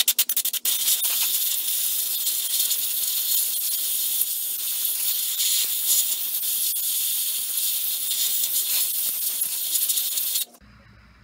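Compressed-air blow gun with a long metal nozzle blowing into an open magneto housing, clearing out dust: a few short sputtering bursts, then a loud steady hiss that cuts off suddenly near the end.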